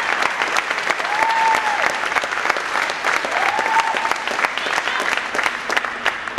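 Crowd applauding steadily, with two rising-and-falling cheers heard over the clapping.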